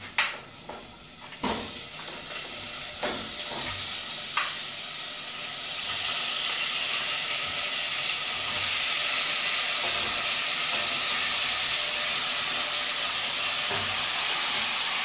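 Curry pork sizzling in a hot stainless steel pot on a gas burner as water is poured in from a bowl: a steady hiss that grows louder about six seconds in and then holds, with a few light clinks in the first four seconds.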